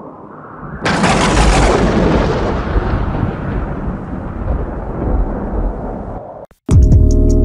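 Logo-sting sound effect: a sudden loud, blast-like noise about a second in that slowly dies away over several seconds. After a brief cut to silence near the end, music with a steady beat starts.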